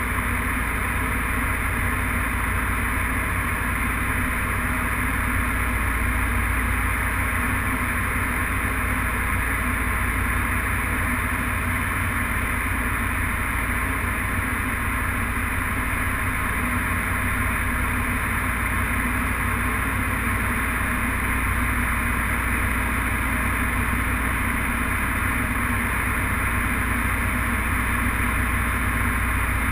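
Single-engine light aircraft's piston engine and propeller droning steadily in cruise, heard inside the cockpit.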